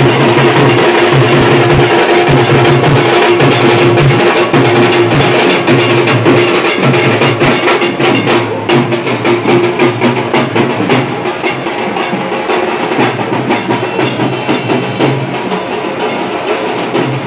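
Dhol and tasa drums played in a fast, dense, loud rhythm, dropping somewhat in loudness after about eight seconds.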